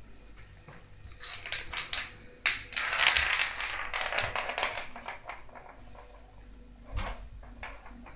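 A walnut in its shell clicking and skittering on a ceramic tile floor as a kitten bats it about, with sharp knocks about two seconds in and a stretch of scuffling just after.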